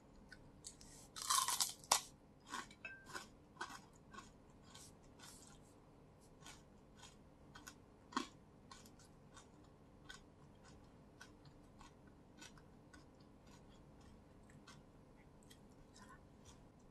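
Close-miked crunching of crispy fried dried fish being bitten and chewed, with a loud crunch about a second in and then scattered crackles that grow sparser.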